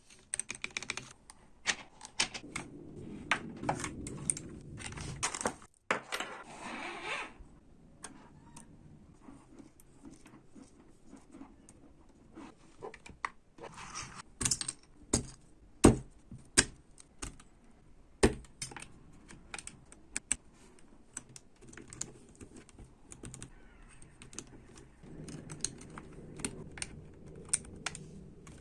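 Mechanical keyboard with Gateron Yellow Pro linear switches: irregular key presses and clacks as it is typed on and handled, with a stretch of rustling in the first several seconds.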